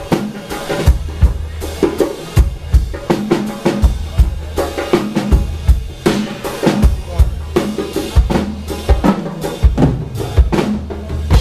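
Drum kit played in a steady, busy groove of bass drum, snare and rimshot hits, with a sustained low bass line underneath, as a konpa band checks its sound.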